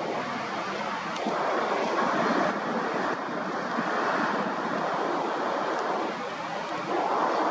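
Surf washing on a beach: a steady rushing noise that swells about a second in and again near the end, with wind buffeting the microphone.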